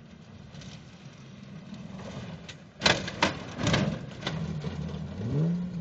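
Off-road vehicle engine running low, then a cluster of loud knocks and clatters about three seconds in, followed by the engine revving up near the end.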